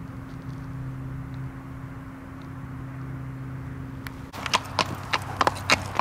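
A steady low hum, then, about four seconds in, a run of sharp, irregular knocks of steps or hooves on hard ground, several a second.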